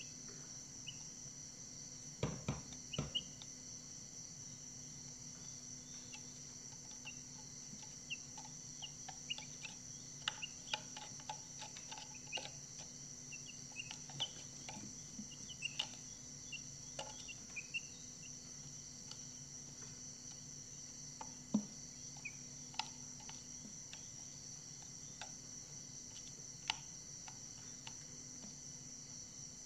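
Steady high-pitched insect chirring, like crickets, with scattered light taps and short faint chirps. A small cluster of louder taps comes about two to three seconds in.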